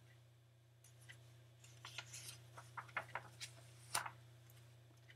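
Pages of a large paperback picture book being turned: a scatter of soft paper rustles and flicks, over a faint steady low hum.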